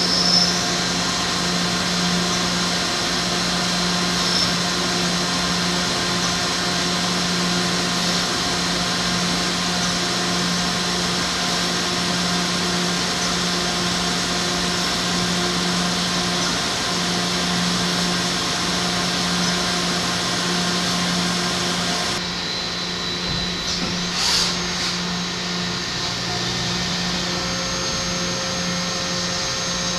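DMG Mori NTX 1000 CNC mill-turn lathe running with flood coolant spraying inside its enclosure: a steady hiss over a hum with a steady low tone. The sound shifts and drops a little about 22 seconds in, with a brief swish about two seconds later.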